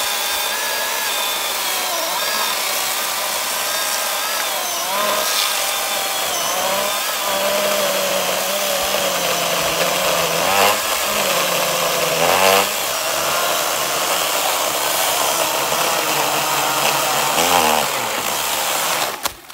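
Milwaukee M18 Fuel cordless chainsaw's brushless electric motor running under load as the chain cuts through a dry log, the whine dipping in pitch a few times as the chain bites, then cutting out suddenly near the end as the cut finishes.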